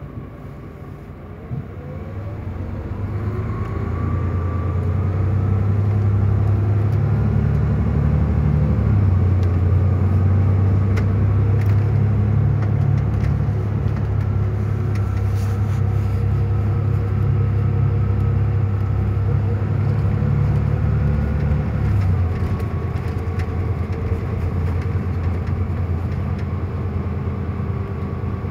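Mercedes-Benz Tourismo coach's diesel engine heard from on board, accelerating with rising pitch from about two seconds in, then running loud and steady under load before easing off near the end.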